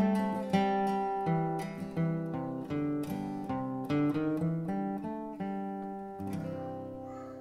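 Background music on acoustic guitar: a picked melody of separate plucked notes, ending about six seconds in on a chord that rings out and slowly fades.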